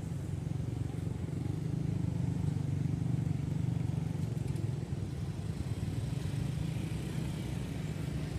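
A motor vehicle's engine running steadily, a low, even rumble.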